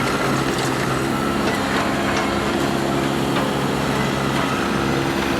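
John Deere 160G excavator's diesel engine running steadily at an even pitch, with scattered light knocks and clicks from the working machine.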